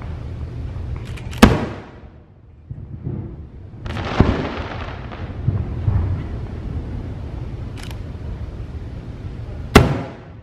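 Aerial fireworks bursting: a sharp bang about a second and a half in, a broader burst with a crackling tail around four seconds, a faint crack near eight seconds, and another sharp bang near the end, over a low rumble.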